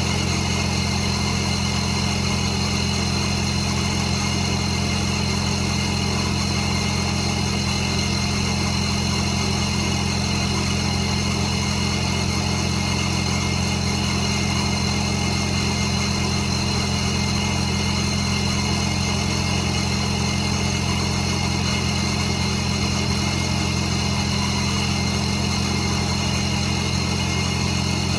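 Supercharged 3.6-litre Pentastar V6 of a 2017 Dodge Charger idling steadily on its first start after a Ripp supercharger install, with a steady high tone running over the idle.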